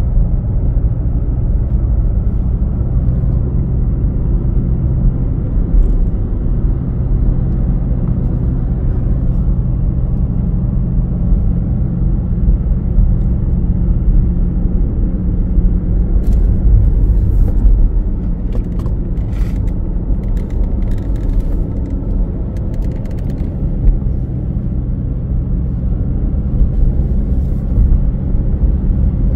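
Pickup truck driving, a steady low engine and road rumble, with a few light clicks about two-thirds of the way through.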